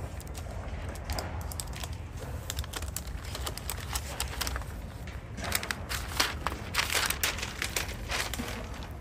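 Crinkling and rustling of the paper protective wrap as it is peeled off a MacBook Pro, with a busier burst of crackles in the second half as the laptop is slid free of the sheet. A low steady rumble runs underneath.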